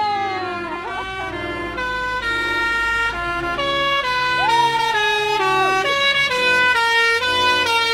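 A truck's musical horn playing a quick tune of held, many-toned notes that change about every half second. About four and a half seconds in, a siren-like whoop rises, holds and falls in pitch.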